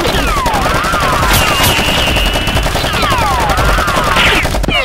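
Machine-gun fire sound effect: a rapid, unbroken stream of shots, mixed with repeated falling whistles and a high steady whine for about a second in the middle.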